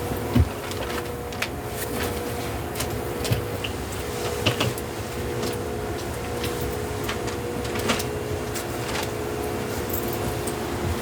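Airport Express train cabin while riding: steady running noise with a constant hum, and scattered small clicks and knocks.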